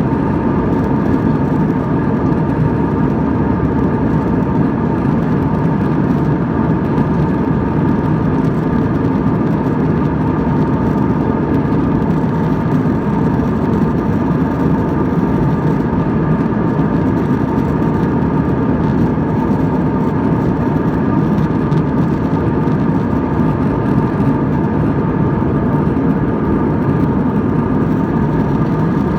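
Jet airliner engines running at a steady cruise, heard inside the cabin as a constant low rumble with a few steady whining tones above it.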